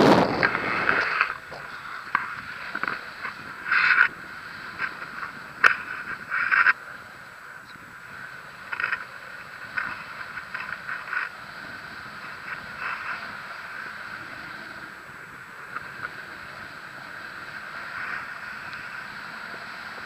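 Wind rushing over the camera microphone during a paraglider flight, loud at first and dropping about a second in, then a lower steady hiss broken by short, irregular gusts and one sharp tick about six seconds in.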